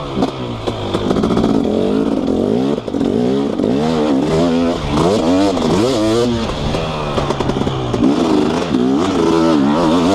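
2018 KTM 250SX two-stroke dirt bike engine through an FMF Powercore 2 silencer, revving up and down over and over as it is ridden, its pitch rising and falling every second or so.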